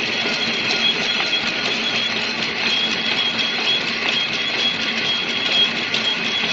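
Barbed-wire twisting machine running steadily: an even mechanical clatter with a high, steady whine over it.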